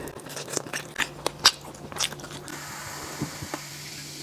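Close-miked biting and chewing on a chicken drumstick, a scatter of small wet clicks, for about two and a half seconds. Then iced cola is poured into a glass, fizzing with a steady hiss until the end.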